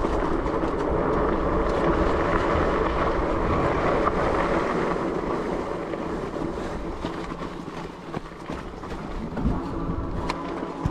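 Wind buffeting the microphone over the steady rolling noise of a fat-tire electric bike ridden on a muddy dirt trail. It eases off after about six seconds, with a few knocks from the rough ground near the end.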